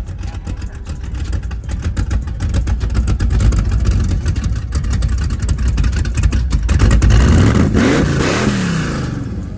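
Cammed LS V8 in a G-body Monte Carlo SS running with a rapid pulsing rumble, then revved up and back down near the end.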